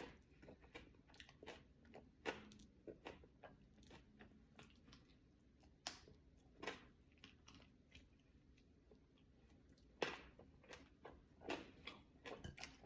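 Faint close-up chewing of fish: irregular wet mouth clicks and small crunches as the galunggong (round scad) is chewed.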